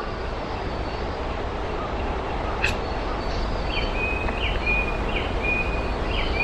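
A bird calls four times in a row in the second half, with short whistled notes over steady outdoor background noise. A single sharp click comes a little before the calls.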